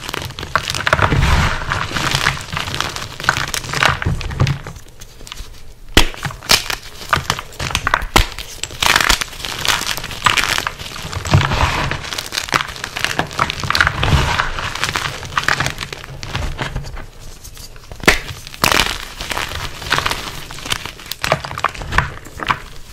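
Blocks of gym chalk being crushed and crumbled between bare hands in a bowl: dense, continuous crunching and crackling. It goes briefly quieter twice.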